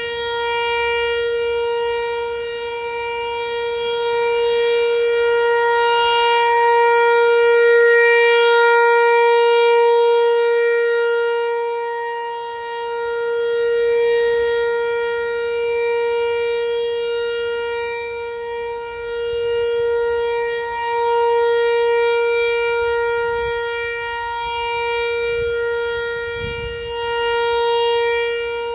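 Outdoor tornado warning siren sounding a steady, unwavering tone with many overtones, its loudness swelling and fading about every seven seconds.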